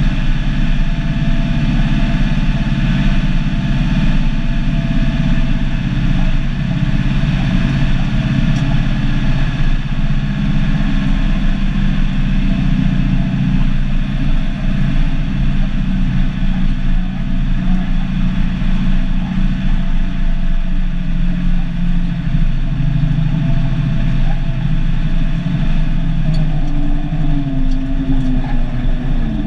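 Turbocharged Cummins NH-180 inline-six diesel of an International F-210D dump truck running steadily under way, heard from inside the cab. Its pitch wavers slightly near the end.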